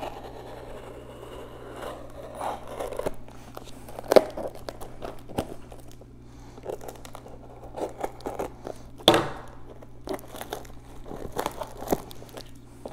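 Packing tape and clear plastic wrap on a parcel being slit with a folding knife and pulled open, crinkling and tearing irregularly, with two louder sharp sounds about four and nine seconds in.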